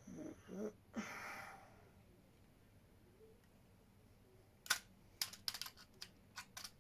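A short murmur and an exhale, then, a few seconds later, an irregular run of sharp clicks and taps from handling a stripped disposable camera's flash circuit as it is fiddled with to fire the flash.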